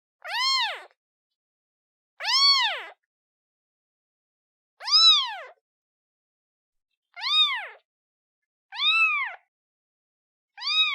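Newborn kitten meowing for its mother: six short, high meows, each rising then falling in pitch, spaced about every two seconds with silence between.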